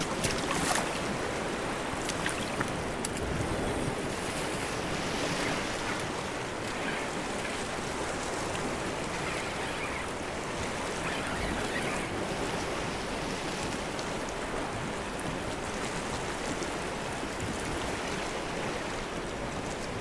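Sea surf washing against a rocky shore: a steady, unbroken rush of waves.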